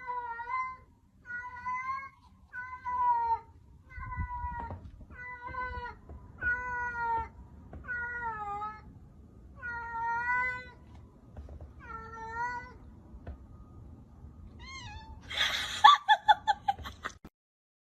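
A cat meowing over and over, about ten drawn-out meows roughly a second apart, several dipping in pitch at the end. Near the end the cat gives a louder, harsher cry made of rapid pulses, which cuts off suddenly.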